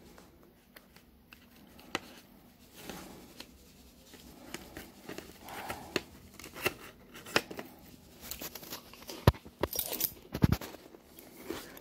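Light clicks, taps and rustles of crackers and toppings being handled in a plastic snack tray, busier in the second half, with two heavier thumps near the end.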